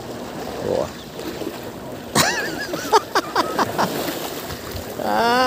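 A man's short wordless exclamations over wind and water noise, then a long, wavering drawn-out cry starting near the end.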